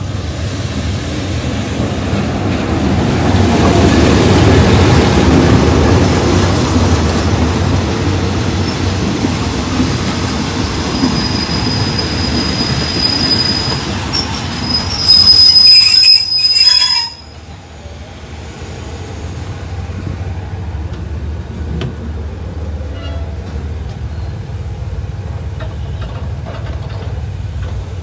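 GE diesel locomotive GEK 4038 and its passenger coaches rolling into the station, the engine running and the cars rumbling past. A high, thin brake squeal comes as the train slows to a stop, loudest about halfway through. The sound then cuts off abruptly to a quieter steady hum.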